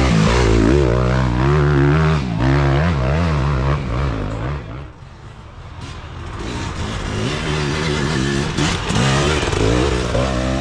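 Dirt bike engines running loud, the pitch rising and falling as the throttle is worked. The sound drops away about five seconds in, then builds again as a bike comes back up to speed.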